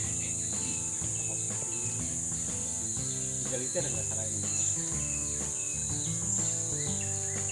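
Steady high-pitched drone of forest insects, with faint low music tones underneath.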